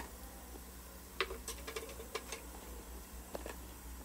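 A few faint, light clicks and taps of kitchenware at a frying pan of stir-fried vegetables, over a low steady hum.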